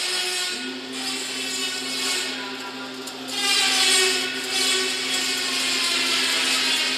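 Fully automatic chain link fence machine running. A steady hum sets in about half a second in, with whirring tones gliding up and down in pitch above it, and the sound grows louder about three seconds in.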